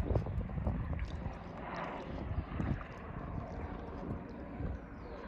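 Wind buffeting the microphone outdoors, an uneven low rumble that rises and falls in gusts.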